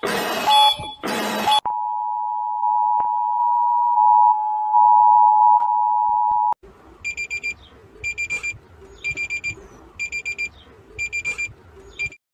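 Emergency Alert System–style alarm audio: harsh screeching data bursts end, followed by a steady two-tone attention signal held for about five seconds. That signal cuts off and gives way to groups of rapid, high-pitched beeps about once a second, which stop abruptly near the end.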